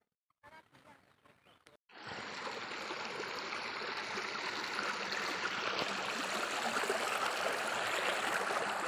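Water rushing over rocks in a forest stream: a steady, even hiss that starts abruptly about two seconds in.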